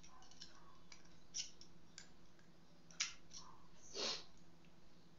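Small metal clicks and taps from handling an air rifle's valve assembly and a small hand tool, with a sharp click about three seconds in and a short, louder clatter about four seconds in as the tool is put down on the table.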